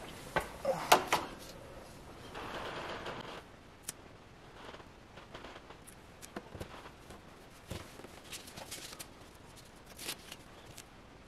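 Small handling noises: scattered sharp clicks and taps, a few louder ones in the first second, and a brief rustle about two and a half seconds in.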